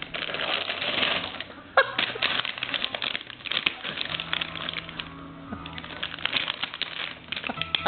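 Cat rummaging with its head inside a cardboard cracker box: rapid, irregular crackling and rustling of the box and its inner packaging, with one sharper knock about two seconds in.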